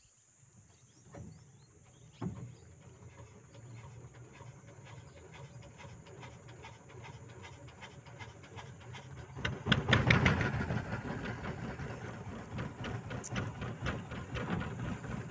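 A small boat's engine starts a couple of seconds in and runs at a low, steady idle, then is throttled up about nine and a half seconds in and runs much louder.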